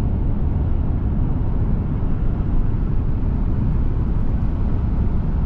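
Steady road noise inside a pickup truck's cab at highway speed, with engine and tyre rumble and no breaks.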